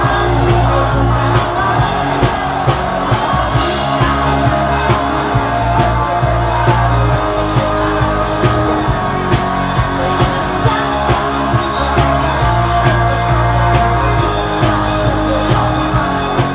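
Rock music with guitar, a steady drum beat and a singing voice.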